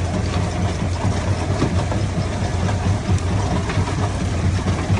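Quarry jaw crusher running: a steady low drone with scattered knocks and clatter of stone being broken.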